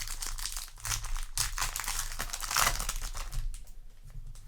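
Foil booster-pack wrapper being crinkled and handled, a dense crackling that is loudest about two and a half seconds in and dies down near the end.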